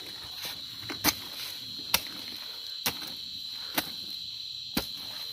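Hoe chopping into the soil of a cricket burrow, sharp strikes about once a second. Behind it, a steady high-pitched chorus of crickets singing at night.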